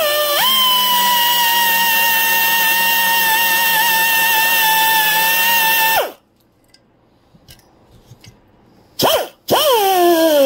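Handheld rotary tool spinning a brass wire brush against a chainsaw crankcase, scrubbing corrosion scale off the metal. A steady high whine runs for about six seconds, winds down, then gives a short blip and starts up again near the end.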